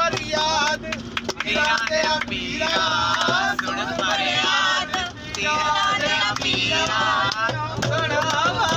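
Music with a man singing, a Punjabi-style song playing inside a bus cabin, over a steady low hum.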